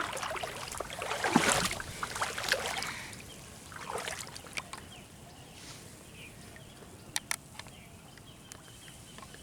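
Water splashing and swishing as a cast net is hauled through shallow water. The splashing is loudest over the first few seconds and comes again briefly, then dies down to quiet water with a couple of sharp clicks.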